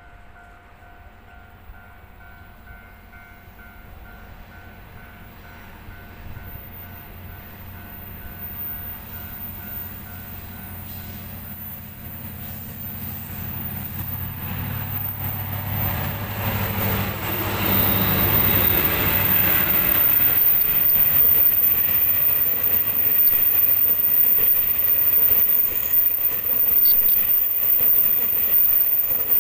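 A double-headed pair of R200 diesel-electric locomotives approaches and passes with a low engine drone that grows louder to a peak about 18 seconds in. The hauled EMU3000 electric multiple-unit cars then roll by with a steady loud rush of wheels on rail.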